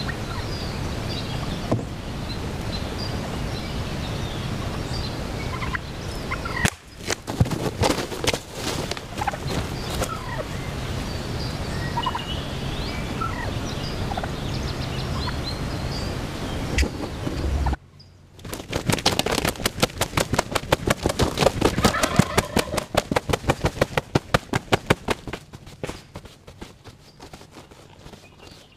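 Wild turkeys at close range, gobbling and calling over a steady background. A little past halfway comes a long run of rapid, loud beats lasting several seconds, the loudest part, which fades toward the end.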